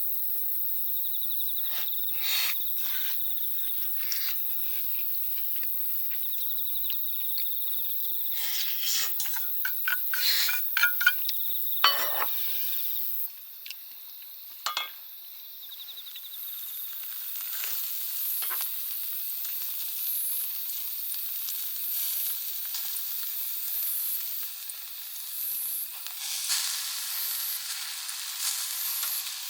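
Food sizzling and frying in a pan over a campfire, a steady hiss with scattered sharp pops in the first half. The sizzle drops suddenly about halfway through, then builds again and is louder near the end.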